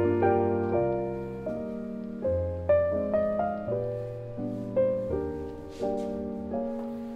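Background piano music: a slow, gentle piece, each note or chord struck and left to fade.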